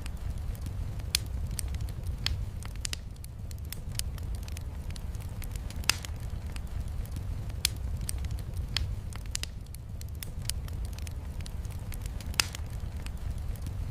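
Wood fire crackling, with sharp pops at irregular intervals, the loudest about a second in, around the middle and near the end, over a steady low rumble.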